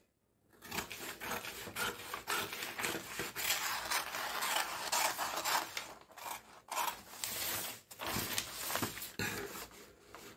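Scissors cutting through stiff kraft pattern paper: a steady scratchy rasp of blades chewing through the paper, broken by a few short pauses after about six seconds in.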